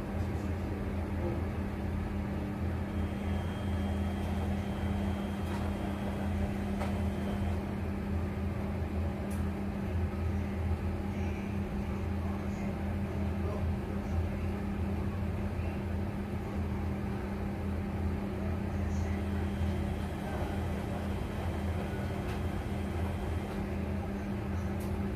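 Steady low mechanical hum with an even hiss beneath it, unchanging throughout.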